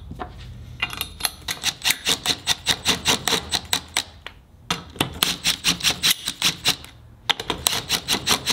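Hand ratchet wrench clicking as it runs down the bolts on the diff carrier bracket, about six clicks a second, in three runs broken by two short pauses.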